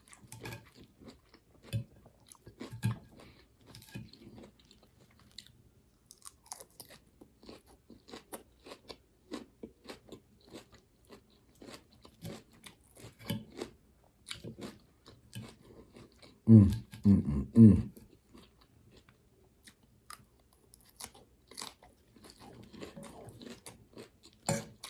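Close-up chewing of crunchy raw salad vegetables such as cabbage and onion: many crisp crunches in an uneven rhythm. There is one louder, low burst about two-thirds of the way through.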